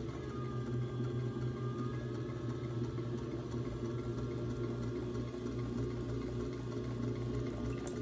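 Electric pottery wheel running steadily with a low hum and a faint whine, while wet hands rub a small lump of fresh clay to center it on the spinning pot.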